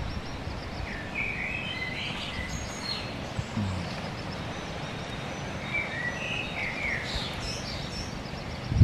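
Small birds chirping in short, quick phrases, one group about a second in and another later on, over a steady background hiss. A single sharp knock right at the end is the loudest sound.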